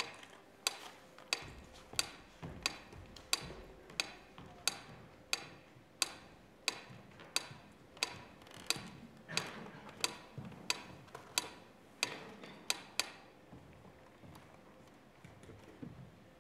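Steady, evenly spaced sharp ticks, about three every two seconds, fading out about thirteen seconds in.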